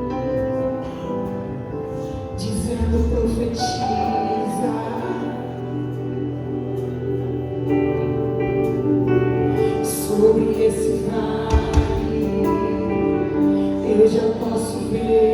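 Christian worship song playing, a woman singing over sustained, slowly changing chords.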